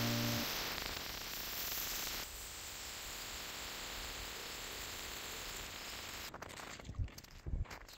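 Ion G2 electric ice auger boring through lake ice: a steady grinding hiss that cuts off suddenly about six seconds in, followed by a couple of low thumps.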